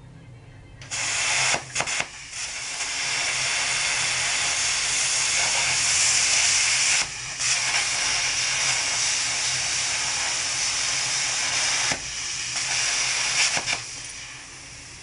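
Handheld plasma cutter cutting metal: a loud steady hiss that starts about a second in, breaks off briefly near the middle, and stops just before the end.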